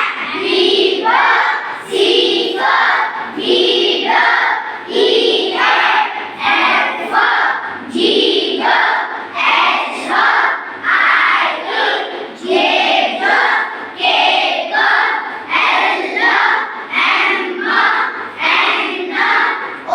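A group of children chanting the phonics sounds of the alphabet in unison, one short syllable after another in a steady rhythm.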